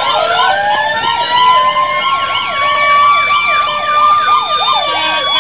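Emergency vehicle sirens: a fast up-and-down yelp repeating about three to four times a second, joined by a second siren that rises in pitch over the first couple of seconds and then holds a steady high wail.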